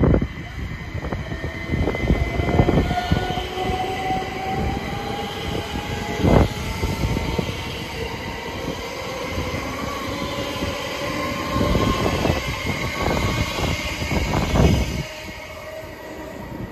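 Electric train moving through the station, with a motor whine that climbs slowly in pitch and irregular heavy clunks from the wheels over the track. The sound drops away sharply near the end.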